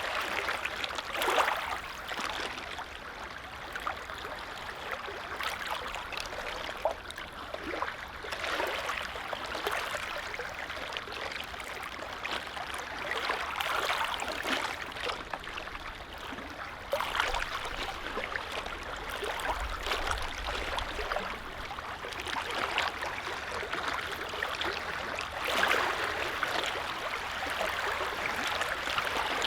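Small lake waves lapping, a steady wash of water that swells and eases every few seconds.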